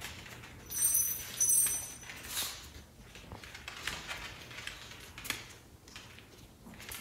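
A small Maltese dog's claws clicking on the floor as it trots and turns, with two short, loud high-pitched rasping sounds about a second in.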